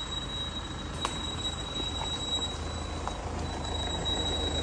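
A Nissan sedan's engine running at a low, steady note as the car reverses slowly along a dirt track, with a thin steady high-pitched tone over it and a couple of faint clicks.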